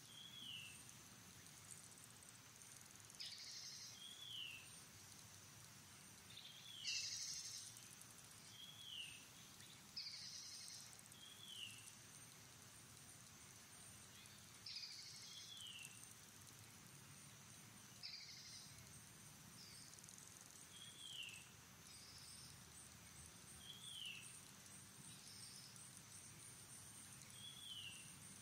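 Faint outdoor wildlife ambience: a steady high insect hum, a short falling chirp repeating every two to three seconds, and a brief hissy rasp now and then.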